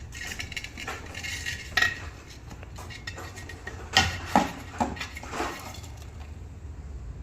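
Metal objects clinking and clattering, with a handful of sharp knocks spread over the middle of the clip, over a low steady hum.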